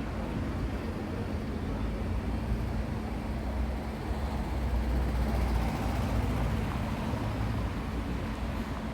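Steady low rumble of city road traffic with a faint engine hum, swelling a little about halfway through.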